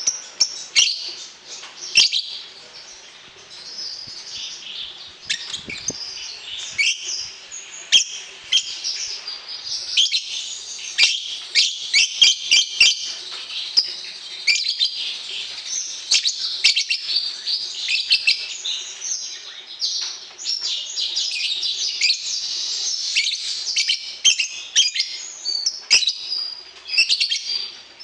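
Lovebird chirping in a dense, continuous stream of rapid, high, sharp chirps and twitters: a lovebird song of the kind played to young birds to train them to respond.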